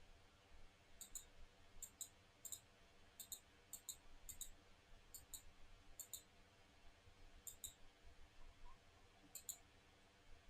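Faint clicking, like a computer mouse: about a dozen quick press-and-release double clicks at uneven intervals, over a low hum.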